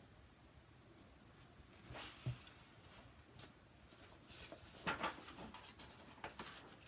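Faint handling noises over quiet room tone: a few brief rustles and light knocks, with a short thud a little over two seconds in.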